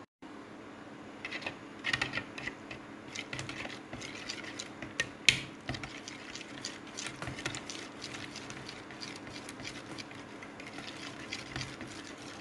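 Wire whisk beating eggs and grated cheese in a glass bowl: fast, uneven clicking and tapping of the wires against the glass, with one louder clack a little after five seconds. A low steady hum runs underneath.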